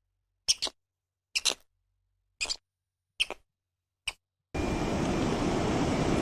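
Horse hooves clopping on a hard surface: a double clop about every second, with silence between. About four and a half seconds in, a steady rushing noise starts abruptly.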